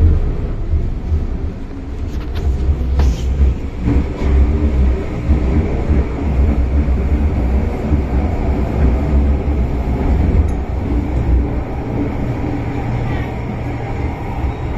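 MTR Island Line M-Train subway car running through a tunnel: a loud, steady low rumble with wheel and track rattle.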